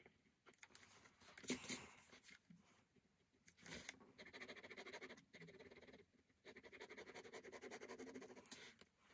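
Ballpoint pen hatching on sketchbook paper: faint, rapid back-and-forth scratching strokes from about four seconds in, pausing briefly twice. About a second and a half in, there is a louder rustle as the sketchbook is shifted on the desk.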